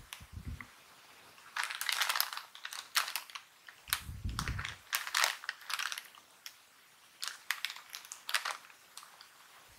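A Clover Chips plastic snack bag crinkling as hands turn it over and squeeze it, in bursts of sharp crackles, with a dull low thump about four seconds in.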